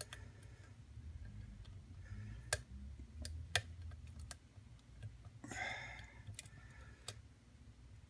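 Scattered faint metallic clicks of a hook pick working the pins of a Trekmaster padlock under tension, the lock held in a deep false set. A few clicks are sharper than the rest.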